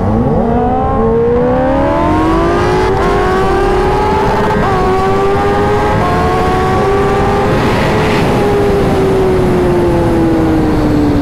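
Sport bike engine at full throttle, its pitch climbing steadily through the gears with a quick upshift about four and a half seconds in. After about eight seconds the throttle is rolled off and the pitch falls away. Heavy wind rush runs under the engine throughout.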